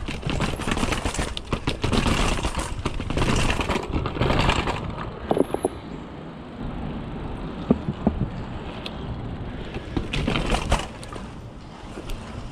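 Mountain bike descending concrete stairs: a rapid run of tyre impacts and bike rattle for about five seconds. Then quieter tyre rolling on pavement with scattered knocks, and a louder rush of noise about ten seconds in.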